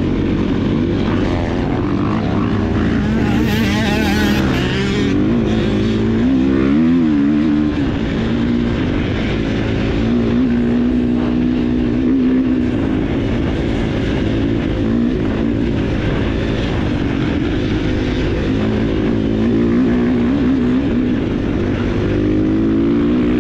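Dirt bike engine running under way, its pitch rising and falling again and again as the throttle is worked and gears change.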